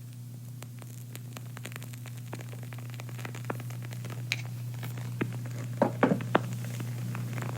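Small sharp crackles and clicks that grow denser, with a few louder pops about six seconds in, over a steady low hum of room tone.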